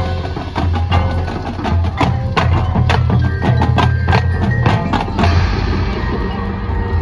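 High school marching band playing, led by many sharp percussion hits over a steady low bass, with tuned mallet percussion ringing through the middle. The sharp hits thin out about five seconds in.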